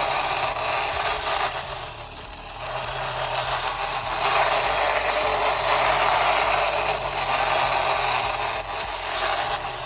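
Vintage Russian tin-plate wind-up toy train running on its tin track: the clockwork motor whirring and the tin wheels and body rattling steadily, growing louder and quieter in turns as it goes round.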